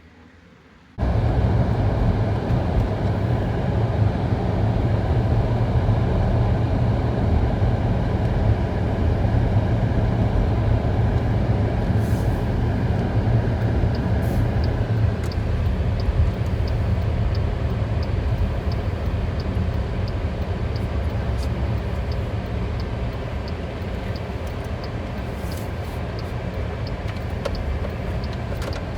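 Motor vehicle running steadily with a low engine and road rumble, starting abruptly about a second in. From about halfway through, a regular light ticking is heard over it, roughly twice a second.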